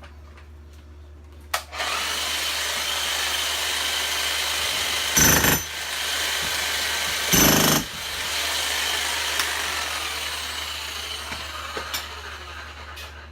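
Bosch electric demolition hammer starting up about a second and a half in and hammering at brick and mortar, with two louder bursts around the middle. It eases off gradually and stops near the end.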